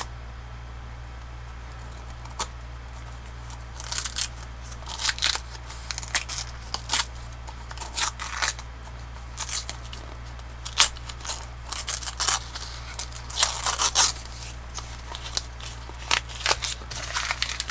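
Paper gift wrap being torn and crumpled off a small cardboard box, in irregular crackling bursts that begin about four seconds in.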